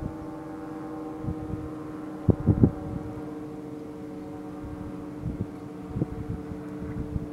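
A steady mechanical hum of several even tones at once, with irregular low thumps on the microphone, the strongest about two and a half seconds in.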